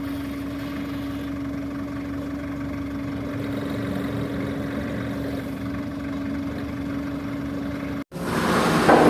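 Heavy-equipment diesel engine idling steadily with an even hum. About eight seconds in, the sound drops out for an instant and a louder, rougher engine sound begins.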